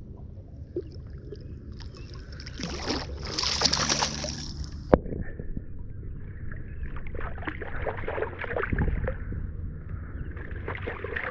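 Water sloshing and splashing against a kayak's hull, with a single sharp knock about five seconds in.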